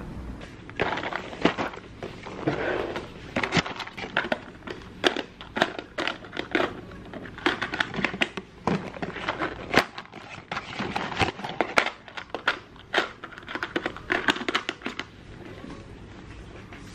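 Small packages rustling and clicking as they are handled and dropped into a plastic drawer, a busy run of crinkles and light knocks.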